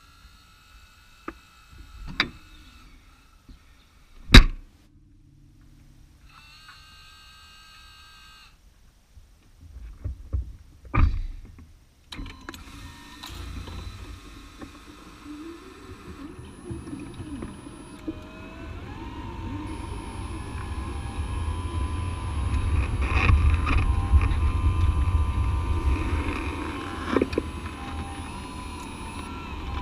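A BMW hybrid driving on electric power only at low speed, heard from beneath the car. A few sharp knocks and clunks come first, then a low rumble with a faint whine that builds from about twelve seconds in as the car gets moving.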